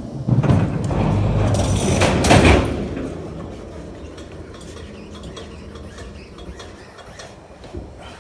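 Manual pallet jack rolling a loaded pallet over concrete and onto a box truck's metal lift gate into the cargo box. A loud rumble for the first few seconds, peaking about two and a half seconds in, then quieter rolling with a few light knocks.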